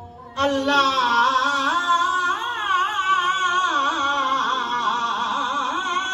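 A man's voice reciting a noha, the Shia lament, in one long ornamented line whose pitch wavers up and down. It comes in suddenly and loud about half a second in.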